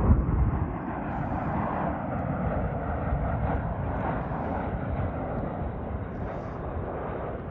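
Jet airliner passing close by, its engine noise a loud steady rumble with a tone that falls in pitch over the first few seconds as it goes past. Wind rumbles on the microphone underneath.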